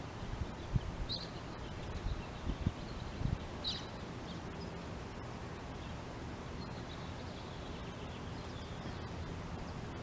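Steady outdoor background noise with a few faint, short bird chirps in the first four seconds and faint high twittering later on. A few low thumps on the microphone in the first few seconds.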